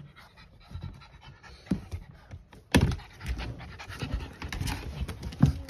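French bulldog panting in quick, noisy breaths. A loud thump about three seconds in, and a smaller one near the end.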